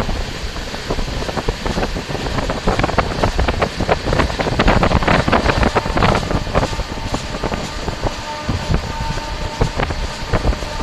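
Riding noise of a moving train: a dense, rapid clatter and rumble, heaviest around the middle, with wind buffeting the microphone. A thin steady whine comes in a little past halfway.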